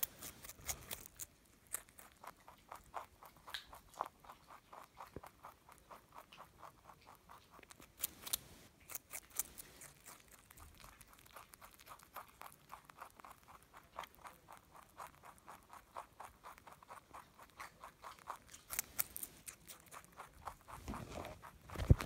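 Pet rabbit chewing a piece of raw carrot: a rapid, steady run of small crisp crunches, with a few louder bites.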